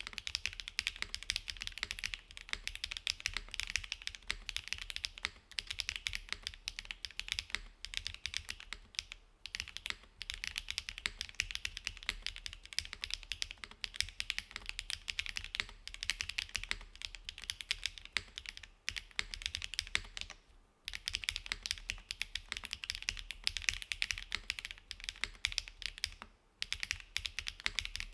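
Continuous fast typing on a gasket-mounted custom mechanical keyboard with a full aluminium plate, no dampening foam, Cera switches and GMK doubleshot ABS keycaps: a dense stream of crisp key clacks with a few brief pauses.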